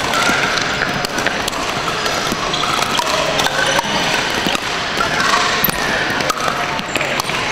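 Pickleball paddles striking hollow plastic balls and balls bouncing on the hardwood floor: many sharp pops, irregular and overlapping, from several courts at once over a steady background of voices and hall noise.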